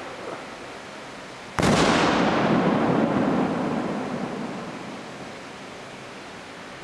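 A homemade aerial firework shell bursts with one sudden loud bang about a second and a half in, followed by a long rumbling tail that fades away over about three seconds. At the start, the tail of an earlier burst is still dying away.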